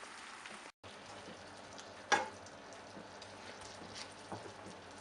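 Chicken curry simmering in a pan with a steady sizzling hiss and a single sharp clink about two seconds in. The sound cuts out briefly just under a second in.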